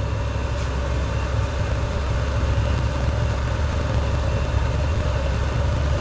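Chinese diesel parking heater, with a small-engine catalytic converter fitted in its burn chamber, running steadily on diesel: a low burner rumble with a faint steady hum above it.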